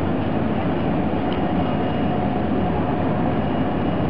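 Steady low rumble of a harbour tugboat's diesel engine as the tug passes close by.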